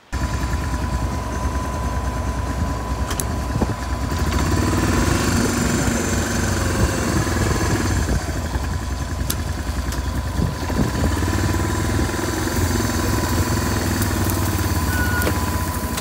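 Old John Deere 6600 combine running steadily, a low engine rumble with a steady high whine over it and a few sharp ticks.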